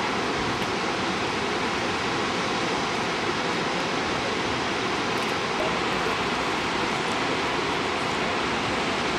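Steady, unbroken rush of waterfalls cascading down travertine cliffs.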